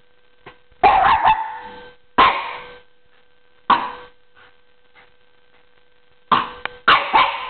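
Young Norwich terrier barking: a string of sharp barks, spaced one to two seconds apart, then coming faster near the end.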